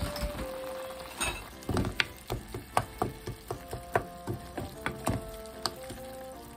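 Wooden spatula knocking and scraping against a nonstick frying pan while stirring crumbled tofu and ground chicken. The knocks come irregularly, about two a second, starting a little over a second in.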